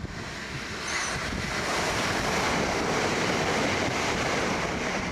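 Southern Class 377 electric multiple unit passing through the station at speed: a steady rush of wheels and air that swells about a second in and holds, with wind buffeting the microphone.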